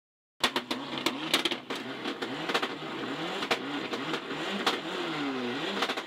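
Ford Escort RS Cosworth rally car heard from inside the cabin, its turbocharged four-cylinder engine revving up and down through gear changes. Sharp knocks and clicks come over it, most of them in the first second or so. The sound cuts in abruptly about half a second in.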